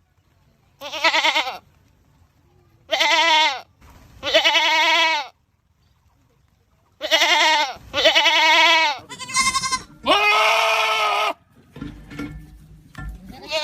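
Goats screaming: a series of about seven loud, wavering bleats, each half a second to a second long with short pauses between. Quieter, mixed sound follows in the last couple of seconds.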